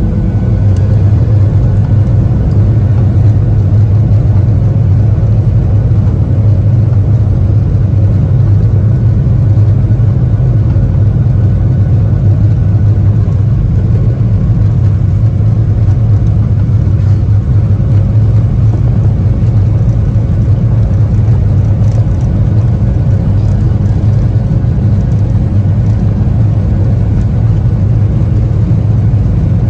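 Boeing 737-800's CFM56 turbofan engines at takeoff thrust during the takeoff roll, heard inside the cabin over the wing as a steady, loud, low rumble.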